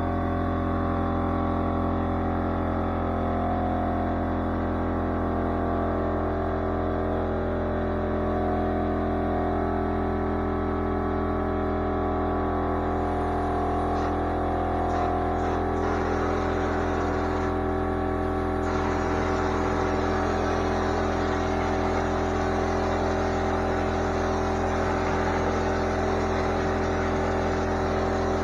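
Air compressor running steadily, its motor and pump humming as it fills the tank to supply a drywall texture hopper. A hiss of air joins in about two-thirds of the way through.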